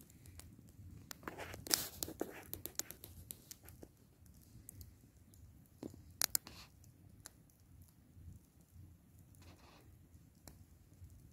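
Driftwood campfire crackling and popping, with a flurry of snaps about one to three seconds in and a sharp double pop around six seconds, over a low steady rumble.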